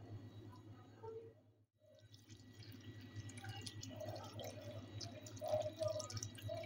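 Tomato water being poured from a pot onto cooked spaghetti and macaroni in a pan, making small wet dripping and splashing sounds that start about two seconds in and grow busier toward the end, over a low steady hum.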